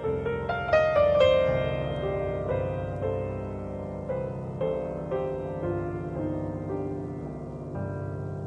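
Solo piano music: a quick flurry of notes about a second in, then a slow melody of single notes over held low notes.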